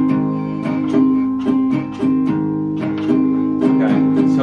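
Acoustic guitar strummed in a steady rhythm, one chord repeated over and over.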